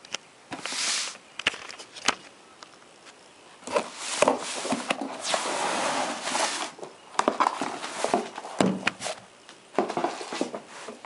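Hands handling a cardboard shoebox: a few clicks and knocks, then long stretches of rustling and scraping as the lid comes off and a sneaker is taken out.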